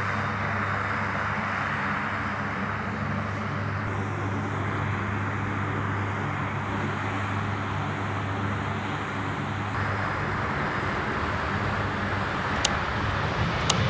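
F-35B Lightning II fighter jet's F135 turbofan engine running steadily during the takeoff roll, with a low hum under a broad rushing noise. About ten seconds in, the hum drops out and the noise turns broader and rougher as the jet leaves the ground.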